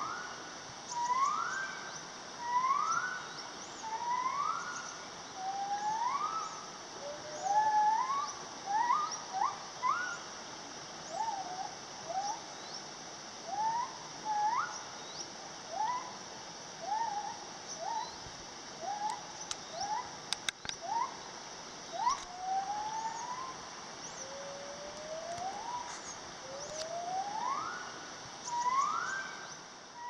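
An animal's whooping calls: long rising hoots about every second and a half, turning into shorter, quicker notes midway, then back to long rising whoops near the end, over a steady high drone.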